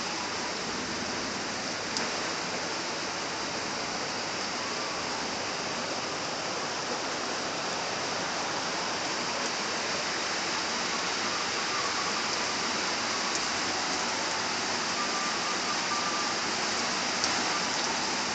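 Heavy rain falling in a steady downpour, with a couple of sharper taps, one about two seconds in and one near the end.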